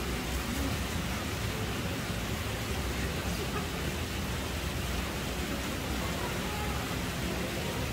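Steady, even background noise with a low hum underneath, with no distinct events.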